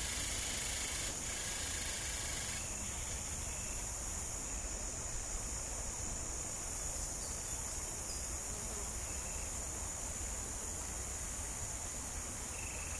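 Steady chorus of tropical forest insects, a continuous high-pitched whine with a few faint short calls over it and a low rumble underneath.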